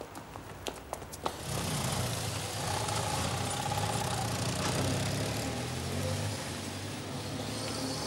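A few sharp footsteps on pavement, then a police motorcycle and van running past, a steady low engine sound that eases off near the end.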